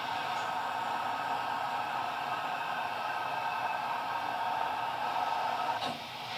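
Live improvised noise music: a steady hissing, airy drone with faint sustained tones layered in it, and a short click near the end as the texture turns brighter.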